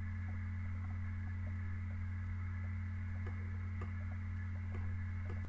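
Steady low electrical hum from the recording setup, with a few faint clicks.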